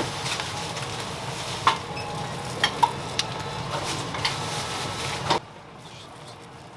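Food frying on a hot griddle, a steady sizzle with a few sharp metal clicks of a spatula or utensils. It stops abruptly about five seconds in, leaving a quieter background.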